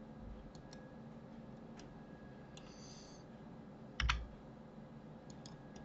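Sparse, faint clicks of a computer keyboard and mouse, with one louder key press about four seconds in.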